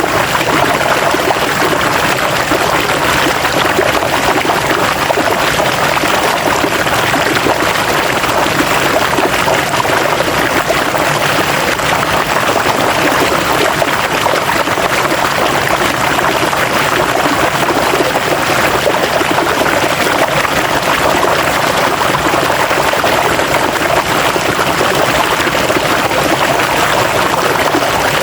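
River water running steadily over rocks, a constant rushing babble.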